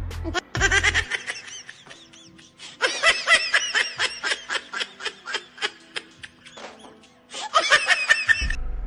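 A person laughing in quick repeated bursts, in three stretches, over background music.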